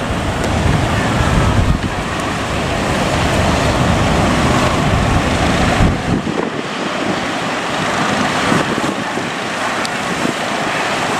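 Big ocean waves breaking in continuous surf, with strong wind buffeting the microphone. The deep wind rumble drops away about six seconds in, leaving the wash of the surf.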